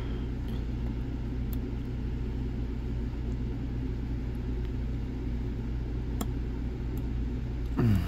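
Steady low background rumble, with a few faint sharp clicks from a lock pick working the pins of a Zeiss Ikon TK5 dimple lock, the clearest about six seconds in.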